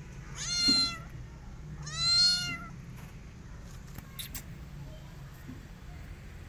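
Kitten meowing twice, two short high calls about a second and a half apart.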